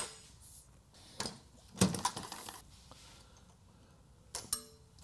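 Metal clinks and clunks from a Dillon RL550 reloading press and its dies being worked by hand: a handful of separate knocks, the loudest a short clatter about two seconds in, and a ringing metallic clink near the end.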